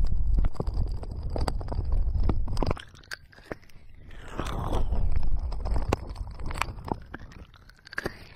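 Hands cupping and rubbing over the silicone ears of a 3Dio binaural microphone: deep muffled rumbling swells with scratchy rustling and small taps. It fades out about three seconds in and swells up again about a second later.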